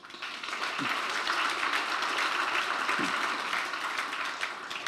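Audience applauding: a dense patter of many hands clapping that starts at once and dies away near the end.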